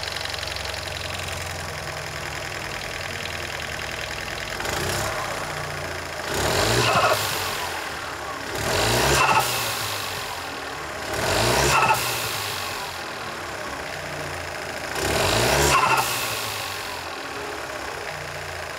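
Stage-4-tuned Fiat 500 TwinAir turbocharged two-cylinder engine idling and revved in four short blips a few seconds apart, each rising in pitch and then dropping back to idle. This is a test run of the newly fitted GFB DV+ diverter valve.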